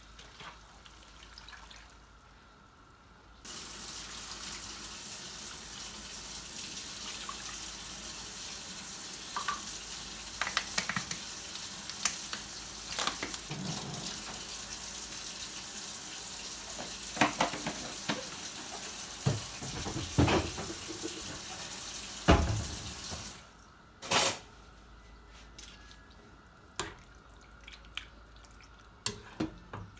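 Kitchen tap running into a sink, turned on a few seconds in and shut off about three quarters of the way through, with scattered knocks and clinks of things being handled under the stream; a few more clicks follow after the water stops.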